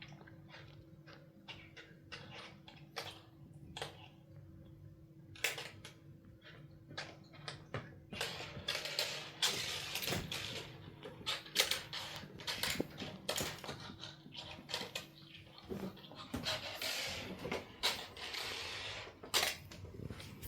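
Kittens playing: scattered clicks and light knocks, then busier scratching and scrabbling of claws from about eight seconds in.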